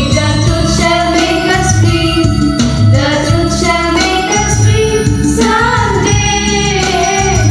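Students singing a prayer song with instrumental accompaniment.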